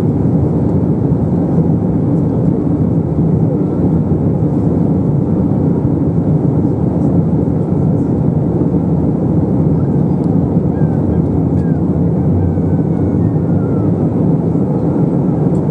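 Airbus A321 cabin noise in flight, heard from a window seat over the wing: a steady low rumble of the jet engines and airflow, unchanging throughout.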